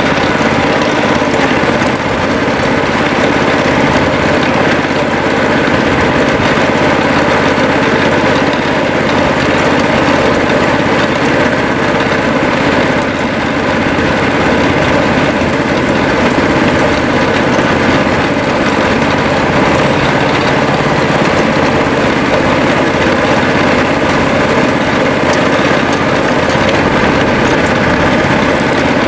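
Miniature railway locomotive's small engine running steadily as the train travels along the track.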